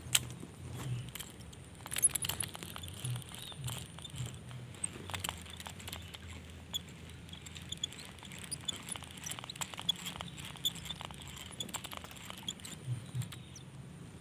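Baitcasting reel handled through a cast and retrieve: a sharp click at the start, then a long run of quick small metallic ticks as the reel is worked.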